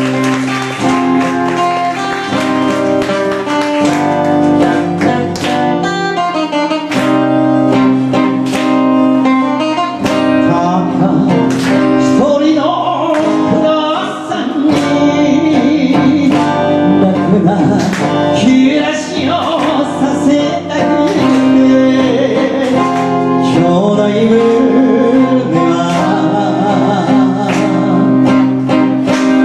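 Instrumental interlude of an enka song: guitar-led backing music with a steady beat and a melody line between sung verses.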